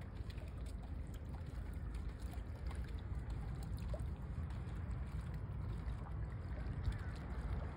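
Steady low rumble of wind on the microphone, with faint trickling water and a few light ticks.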